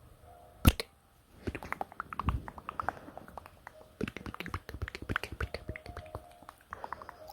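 Wet mouth sounds close to a microphone: tongue clicks and lip smacks in quick, irregular succession. A single loud pop comes about two-thirds of a second in, then after a short pause the clicking runs on densely.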